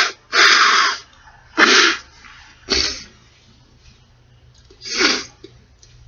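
A person sneezing again and again: snotty sneezes, four short loud ones in quick succession, the first the longest, the last coming after a pause of about two seconds.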